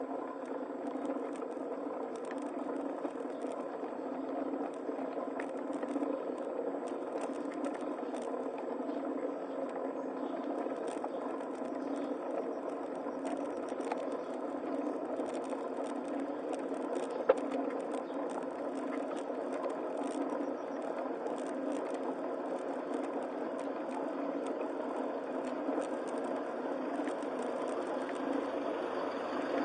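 Steady mechanical running with fine rattling and clicking throughout, with one sharp click about 17 seconds in.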